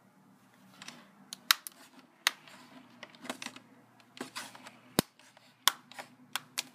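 Plastic clips of an Asus X55VD laptop's screen bezel snapping into place as it is pressed around the lid: about seven sharp, irregular clicks, with softer plastic handling rustles between them.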